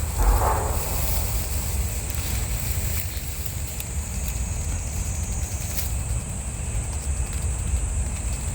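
Steady high-pitched chirring of insects, with a low rumble of wind on the microphone and a few faint ticks.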